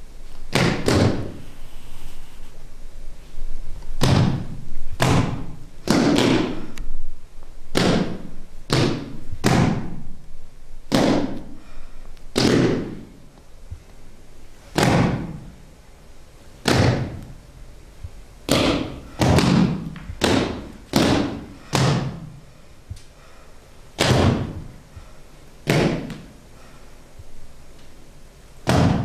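A series of about twenty heavy thuds at an irregular pace, each a sharp hit that trails quickly downward in pitch; they come close together in the first half and farther apart later.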